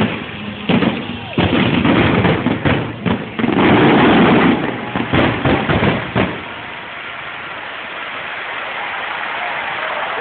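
Fireworks going off: a rapid run of bangs and crackles, heaviest about four seconds in, that stops about six seconds in, leaving a quieter, steady noise that slowly grows.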